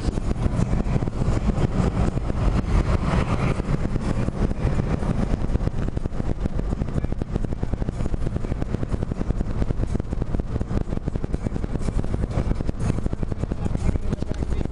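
Car engine and road noise heard from inside the cabin while driving, a steady low rumble without clear gear changes.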